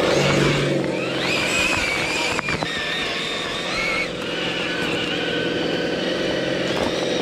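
Radio-controlled rock crawler's electric drive motor and gears whining as it drives, the pitch rising about a second in and stepping down twice as the throttle changes.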